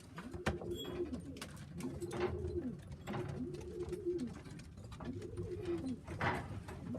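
Racing pigeons cooing, about five repeated low, arching coos of roughly a second each, with scattered sharp taps between them.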